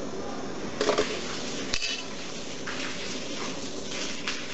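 Metal clinking and scraping as a lead-sinker mould is handled in gloved hands, with two sharp clanks about one and two seconds in, then lighter rattles.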